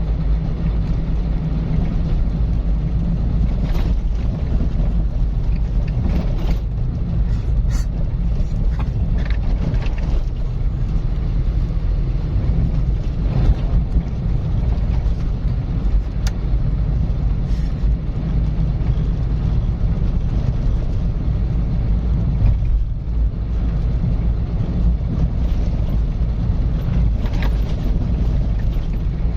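Car driving at a steady, easy pace: a continuous low rumble of road and engine noise, with a few faint ticks here and there.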